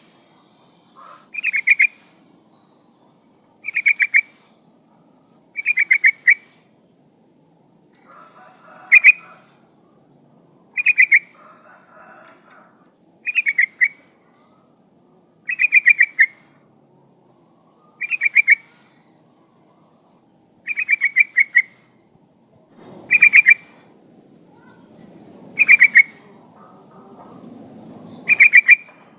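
Yellow-vented bulbul (trucukan) calling: a short phrase of rapid bubbly notes, repeated about every two seconds. It is offered as a female's call that draws a male.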